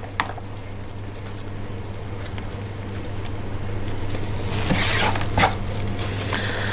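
Gloved hands picking old bark and dead roots off an orchid's root mass over a plastic tray: scratchy rustling and bits pattering into the tray, with a few sharper clicks about five seconds in. A steady low hum runs underneath.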